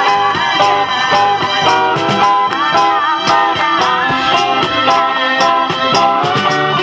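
Rock band playing an instrumental passage: electric guitar and keyboard notes over drums.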